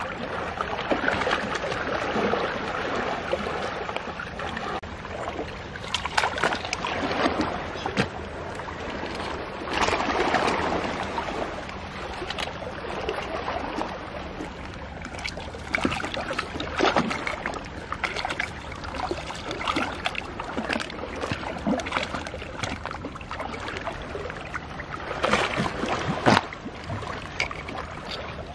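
Shallow seawater sloshing and lapping around shore rocks. Scattered sharp clicks and scrapes run through it as shells are handled against the rock.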